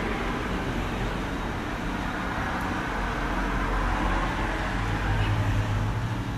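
Steady low background rumble with a broad hiss, and a low hum that rises up about five seconds in.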